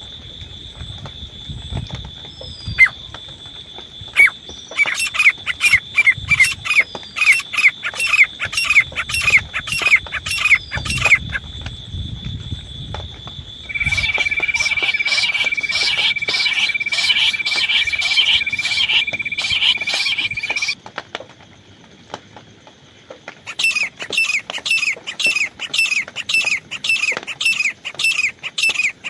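Teetar (francolin) calling: a fast run of short, high, downward-sweeping notes, about two a second, in three bursts with short pauses between. A steady high tone runs under the calls, changing pitch partway through.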